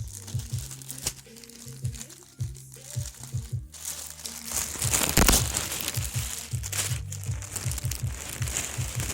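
Packaging crinkling and rustling as clothing is unpacked, loudest about halfway through, over background music with a deep, repeating bass line.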